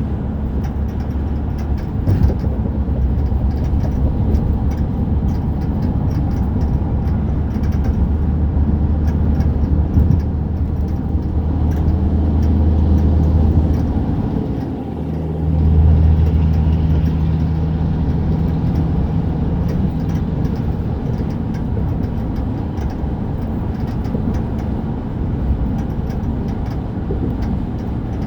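2008 GMC Sierra 1500's 5.3-litre V8 pickup truck on the move, a steady engine hum and road noise with short rattling ticks scattered throughout; the engine note dips briefly about halfway, then picks up again. The rattle comes only while the truck is moving, and its source has not been found; the owner wonders whether it is a pulley or the belt.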